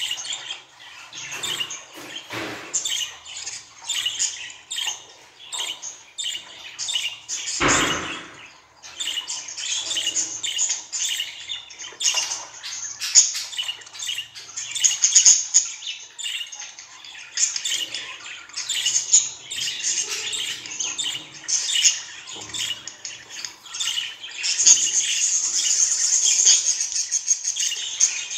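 Budgerigar chattering and warbling in a fast, unbroken stream of short high chirps and squawks. There is one low thump about eight seconds in, and a steadier, brighter warble near the end.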